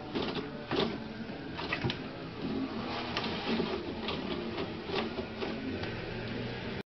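Toilet paper rustling and tearing as a cat paws and bites it off the roll, in irregular crackly spurts over a low hum.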